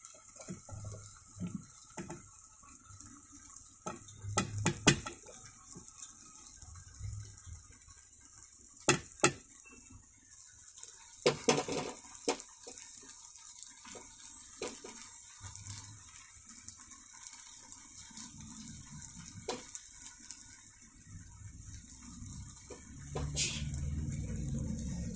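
Scattered clinks, taps and scrapes of a spoon against a steel frying pan and mixer-grinder jar as fried ivy gourd slices are tipped into the jar, over a steady faint hiss.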